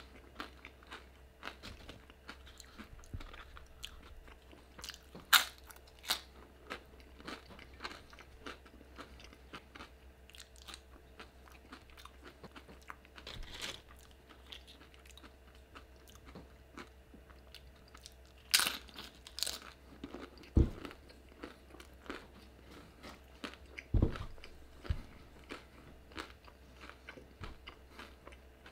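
Close-miked chewing and crunching of tortilla chips and a burrito, with a steady run of small crunches and a few sharper, louder ones.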